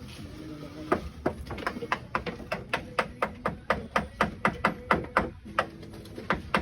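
Hand hammer striking nails in a fast, even run of sharp knocks, about five a second, starting about a second in and stopping a little after five seconds, with a couple more blows near the end.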